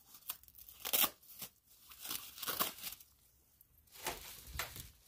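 Packaging wrapper being torn and crinkled off a new tent: a series of short rips and rustles, the loudest about a second in.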